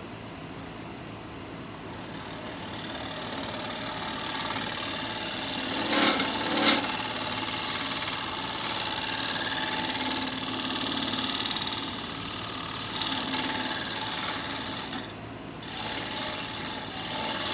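Wood lathe spinning a pear-wood bowl while a scraping tool cleans up the inside bottom: a steady hiss of the tool cutting over the lathe's hum, building over the first few seconds. Two short knocks come about six seconds in, and the cutting breaks off briefly near the end before resuming.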